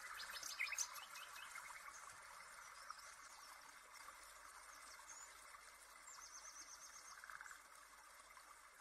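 Faint background ambience: a steady soft hiss with a few short high chirps and ticks, including a quick run of ticks near the end. A cluster of soft clicks under a second in is the loudest moment.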